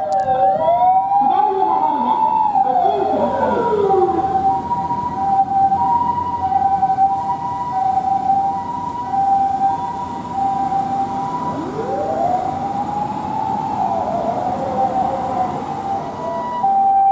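Japanese ambulance's Osaka Siren electronic siren sounding the familiar two-tone "pee-po" alternation, with a rising and falling "woo" wail (the remote siren) laid over it twice: once at the start and again about twelve seconds in.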